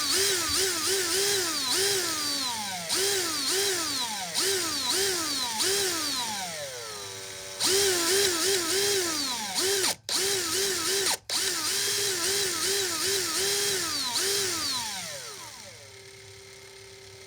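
DeWalt 20-volt Max cordless drill/driver motor revved by repeated trigger pulls, its whine climbing and dropping again and again like a car engine revving. It cuts out briefly twice near the middle, then near the end settles to a steady lower speed.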